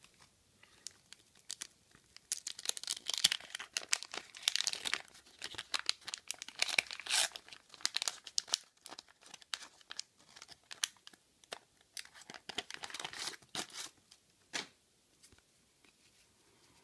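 A 1985 Garbage Pail Kids wax pack being torn open, its wax-paper wrapper crinkling and crackling, loudest in the first half. Then come sparser crackles and clicks as the stack of sticker cards is pulled free and handled.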